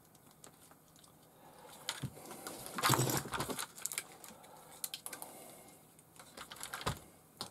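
Small clicks and rustles of hands handling wiring and pushing plastic servo plugs and connectors together on an RC car's electronics. The busiest and loudest clicking comes about three seconds in, with one sharp click near the end.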